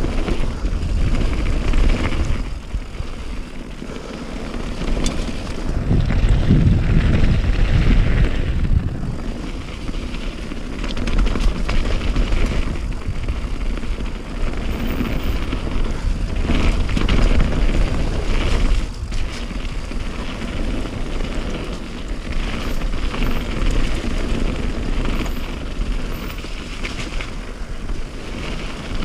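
Motorboat running under way, with heavy wind noise on the microphone. The level rises and falls in surges every few seconds.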